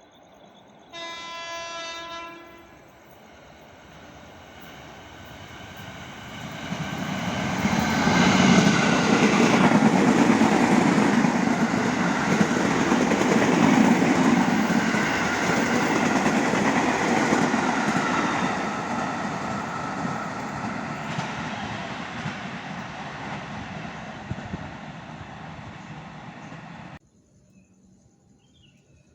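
A train sounds its horn in one short blast of about a second, then runs past close by, growing louder, staying loud for about ten seconds and slowly fading. The sound cuts off abruptly near the end.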